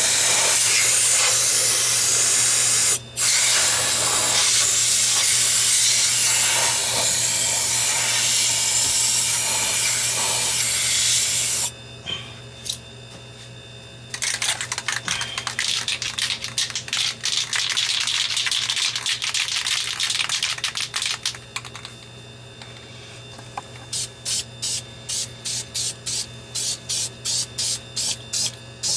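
Aerosol spray paint can spraying in a long, steady hiss, broken once briefly about 3 seconds in, until about 12 seconds in. A second stretch of hissing follows. Near the end comes a quick run of short, evenly spaced sounds, about two a second.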